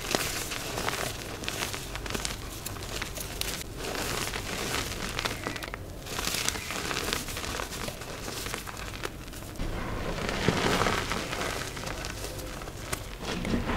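Dyed gym chalk being crushed and crumbled: continuous dry, crunchy crackling with many small sharp snaps, growing denser about ten seconds in.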